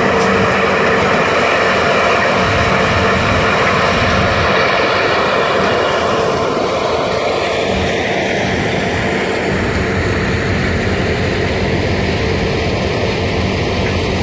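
Claas Lexion 770 combine harvester running at close range, a loud, even machine drone with a steady hum and no change in level.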